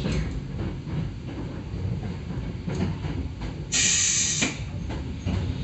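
Hakone Tozan Railway 2000-series electric train running with a steady low rumble and light ticks. About four seconds in, a short loud burst of hiss lasts under a second.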